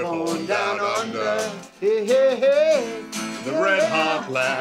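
A man singing to his own strummed acoustic guitar, three sung phrases over steady chords.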